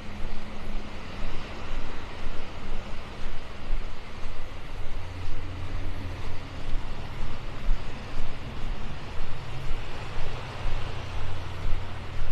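Wind buffeting a phone's microphone outdoors on a beach, a low, gusting rumble with a rough hiss over it.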